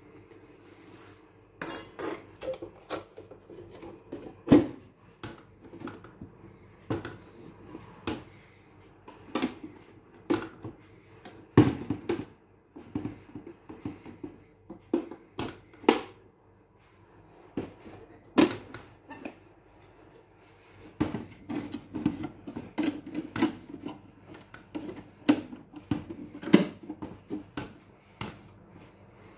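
Irregular clicks, knocks and scrapes of the metal spring clips and clear cover of a sodium street light's sheet-metal housing being handled and fitted, with a short lull about two-thirds of the way through.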